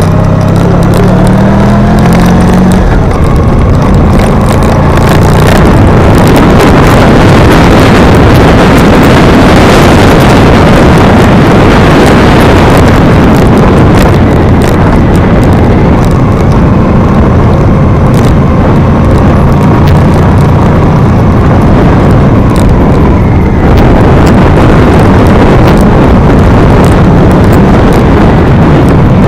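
Vehicle engine climbing a steep road, its pitch rising as it revs up in the first few seconds. Heavy wind buffeting on the microphone is the loudest sound.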